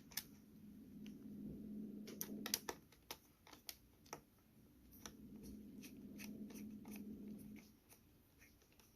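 Faint sound of a precision screwdriver driving a small screw into a laptop's bottom cover: a steady rasping rub with scattered small clicks, busiest around two to three seconds in.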